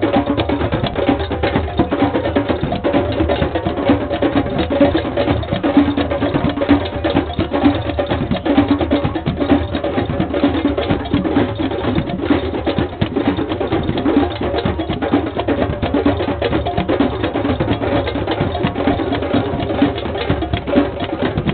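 Drum circle of many hand drums and percussion playing a dense, continuous rhythm.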